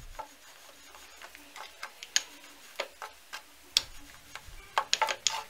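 Wooden rolling pin rolling out a small piece of dough on a wooden board: light, irregular clicks and taps, coming thicker near the end.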